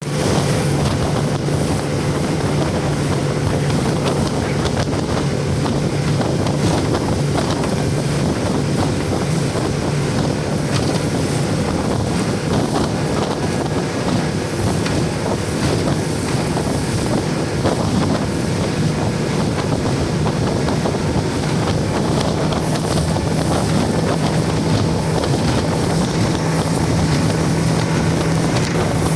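Motorboat engine running steadily under way, with water rushing past the hull and wind buffeting the microphone. The engine note rises slightly about two-thirds of the way through.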